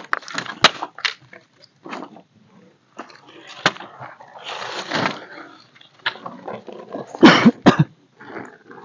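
Camp-setup handling noise: a plastic tarp rustling as it is spread, and dry wooden sticks clicking and clattering as they are handled on the ground. A few loud knocks come near the end.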